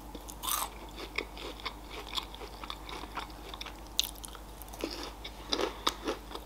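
Close-up crunching and chewing of a Ferrero Rocher chocolate: the wafer shell and hazelnut crackle in many small, irregular crunches.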